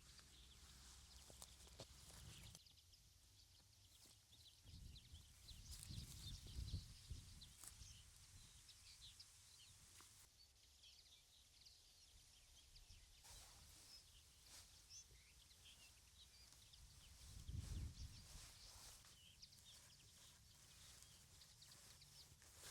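Near silence: quiet outdoor ambience with faint, scattered high bird chirps, and two brief low rumbles, one about five seconds in and one near the end.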